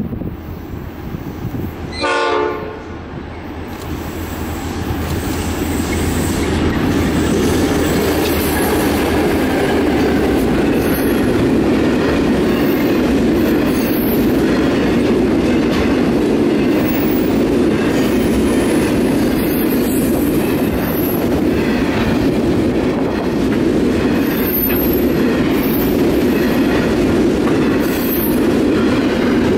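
A train sounds a short horn blast about two seconds in. Then it comes close and runs past with a loud, steady rumble of wheels on rail.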